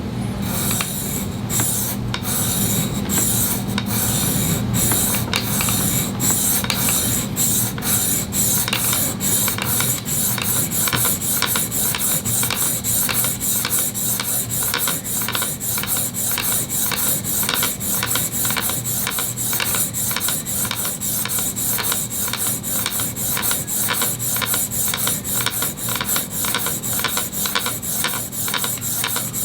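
Ceramic clipper-blade cutter scraped back and forth by hand on the coarse 325-grit side of a dry diamond sharpening plate: a steady run of rasping strokes that quickens after the first few seconds to about three a second. This is the coarse pass that raises a burr on the cutter's edge.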